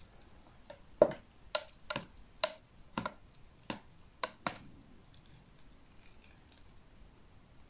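About eight sharp, light clicks and taps over roughly three and a half seconds, from long metal feeding tweezers and plastic containers being handled.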